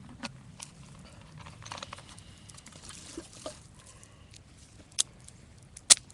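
Wood campfire crackling, with irregular sharp pops from the burning split firewood; the loudest pops come about five and six seconds in.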